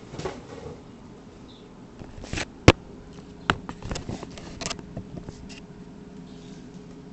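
Handling noises: a scattering of sharp clicks and short rustles, the loudest click a little under three seconds in.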